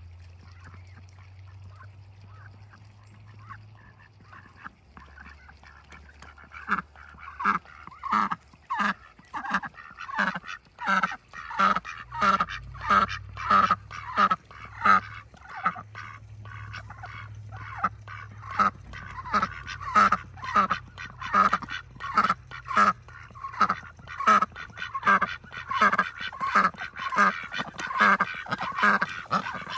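Domestic ducks quacking loudly over and over, a run of short calls about two a second that starts some six seconds in, over a low steady hum.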